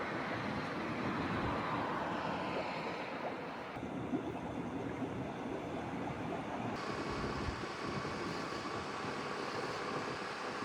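Surf and waves breaking, mixed with wind buffeting the microphone, as a steady rushing noise that changes character abruptly twice.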